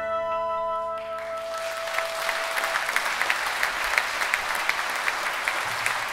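A small dance band's final held chord dies away about a second in, one note lingering a little longer, and the audience breaks into sustained applause.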